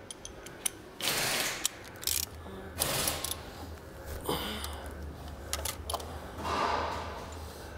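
Hand ratchet wrench clicking in short spells as bolts in a car's engine bay are turned, with a few sharp metal taps between them.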